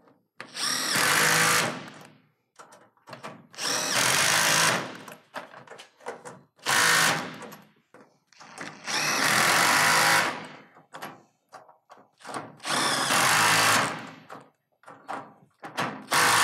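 Cordless power driver tightening the set screws of S-5! seam clamps onto the standing seams of a metal roof panel, in about six separate runs of one to two seconds each.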